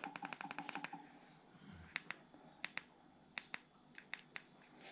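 Small sharp clicks: a quick run of about eight a second for the first second, then single clicks and close pairs scattered through the rest, like buttons being pressed.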